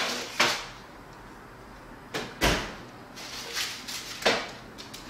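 Metal baking sheet and oven rack being pulled out of an oven: a series of scrapes and clattering knocks, with one duller thump about two and a half seconds in.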